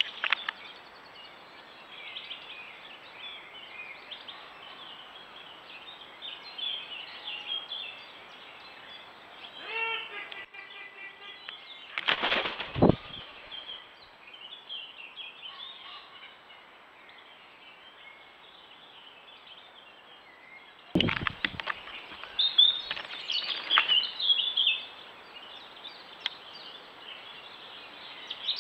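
Wild birds singing and chirping, broken by loud bursts of wing flapping about twelve seconds in and again about twenty-one seconds in.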